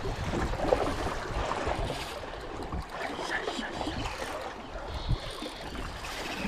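Sea water lapping and splashing against shoreline rocks, with wind rumbling on the microphone.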